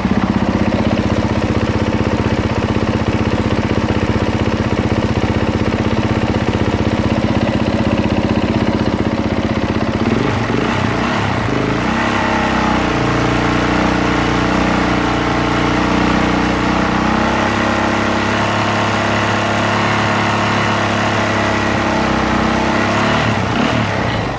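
Honda CRF450R's 450 cc single-cylinder four-stroke motocross engine idling steadily, its note shifting about ten seconds in. It is running on a substitute lithium battery, which points to a dead battery as the cause of the no-start.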